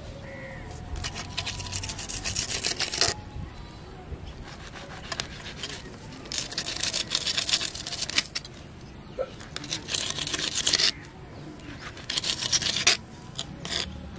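Knife blade sawing and scraping through small fish against a rough stone slab, in four bursts of quick short strokes with a few single taps of the blade on the stone between them.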